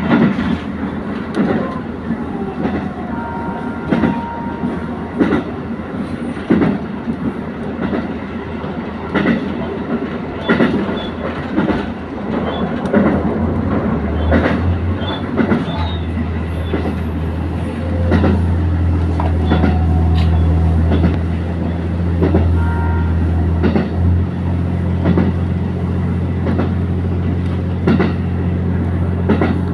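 Diesel train running on jointed rail, its wheels clicking over the rail joints about once a second. About halfway through, a low steady engine drone comes in and holds as the train runs under power.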